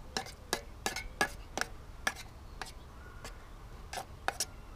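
A metal spoon clinking and scraping against an aluminium camping pan while stirring baked beans and sausages: about a dozen light, irregular clinks.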